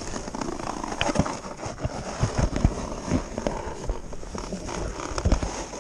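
Irregular knocks and rustling as a handheld action camera rubs and bumps against a nylon ski jacket.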